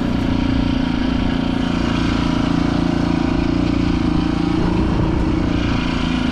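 Small boat's outboard motor running steadily at low speed, with an even, unchanging pitch.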